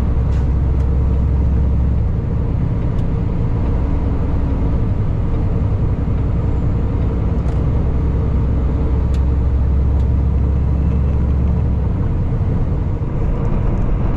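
Semi truck driving at highway speed: a steady, deep engine drone with road noise, heard from inside the cab.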